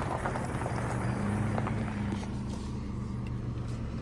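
Pickup truck engine running with a steady low hum, heard from inside the cab.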